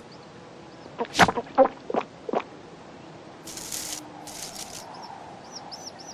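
Cartoon sound effects: four short knocks or pops about half a second apart, then two brief hissing rustles, then faint quick chirps from the cartoon baby birds near the end.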